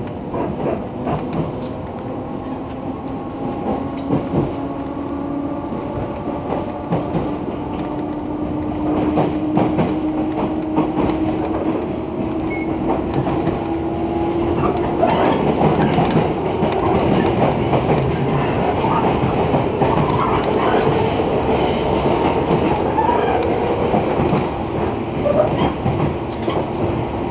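JR West 115-series electric train heard from inside a motor car: the DC traction motors and gearing whine and rise slowly in pitch as the train accelerates away from the station, getting louder over the first fifteen seconds or so. Wheels click over rail joints underneath.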